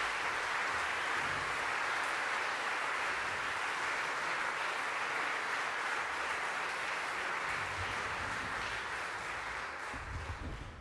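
Concert-hall audience applauding steadily, the applause thinning and dying away near the end.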